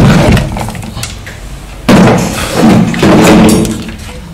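Loud knocking and rubbing from the wooden subwoofer cabinet being handled during disassembly, in two spells: one right at the start and a longer one from about two seconds in.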